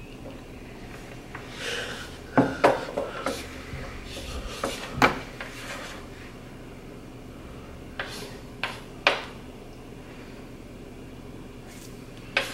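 Marker writing on a small handheld wooden-framed answer board: scattered short scratchy strokes and a few sharp taps, busiest about two to five seconds in and again around eight to nine seconds.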